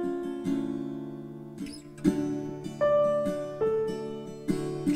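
Instrumental background music: plucked, guitar-like notes and chords, each ringing and fading.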